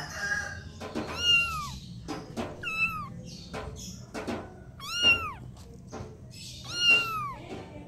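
Kittens mewing: four high, arching calls, each rising then dropping in pitch, with short sharp clicks in between.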